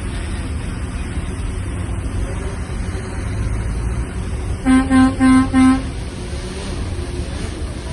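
Heavy diesel engine of a Shantui DH17-C3 bulldozer running steadily with a low rumble, while a vehicle horn sounds four short toots in quick succession about five seconds in.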